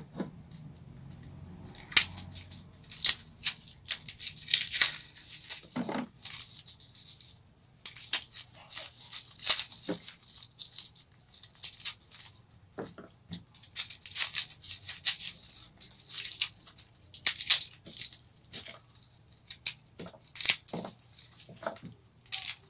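Dry, papery garlic skins crackling and tearing as a whole garlic bulb is peeled by hand, in quick irregular bursts of rustling.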